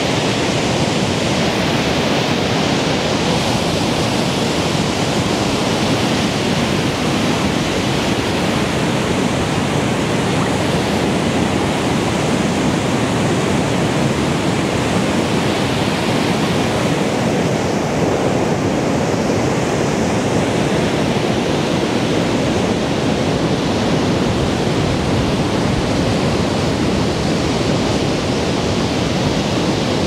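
Stormy sea surf breaking offshore and washing up the sand, a steady, even roar of water.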